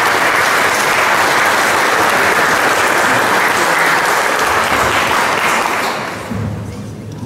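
Audience applauding, then dying away about six seconds in.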